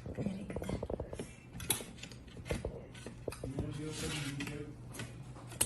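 Scissors cutting into plastic toy packaging: a run of small irregular snips, clicks and crinkles.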